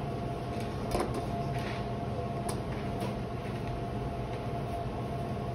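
A steady low mechanical hum with a few light clicks and knocks: one about a second in, two more a little before and after the three-second mark.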